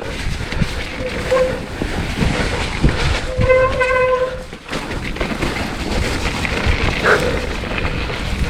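Mountain bike ride on a snowy, slippery trail: steady rumble of tyres over the rough ground and wind on the microphone. About three and a half seconds in, a steady, horn-like tone sounds for just over a second.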